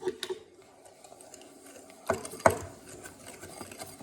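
A whisk beating eggs and sugar in a bowl: quick rattling strokes against the bowl's side, with two louder knocks about two seconds in.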